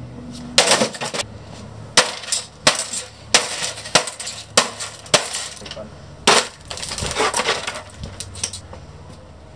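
An old flat-screen computer monitor being smashed apart on stone paving: a dozen or so sharp cracks and crunches of breaking plastic and glass as it is stomped on, with pieces clattering.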